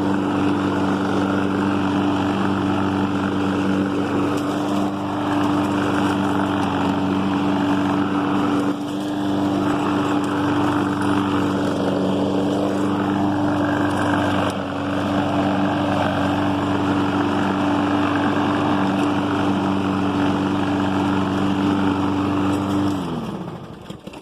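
Husqvarna all-wheel-drive self-propelled lawnmower engine running at a steady speed, then shut off near the end, its pitch falling as it spins down.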